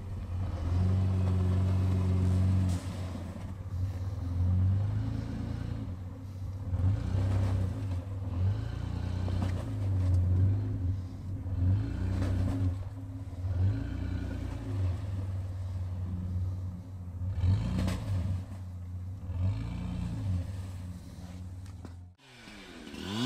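Toyota Land Cruiser 80-series (FZJ80) straight-six engine running and revving up and down as the truck pushes through deep snow. It cuts off suddenly near the end.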